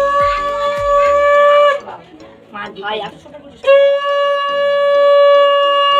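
A conch shell (shankha) blown in two long, steady blasts, each held on one pitch for about two to three seconds, with a short pause between them. This is the conch sounded to mark the bhai phota blessing.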